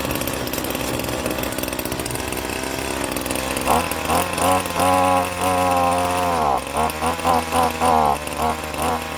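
Two-stroke gas string trimmer, running on 50:1 fuel mix, idling roughly just after starting. About a third of the way in it is revved, the pitch rising and falling through a run of quick throttle blips.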